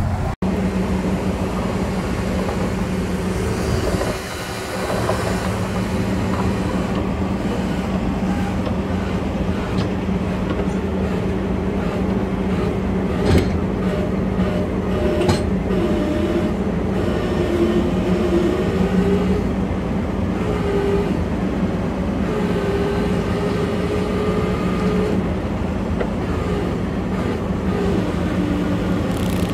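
Medium-duty tow truck running with its winch pulling on a stuck box truck: a steady engine hum with a higher whine that wavers in pitch, and a couple of sharp clanks about halfway through.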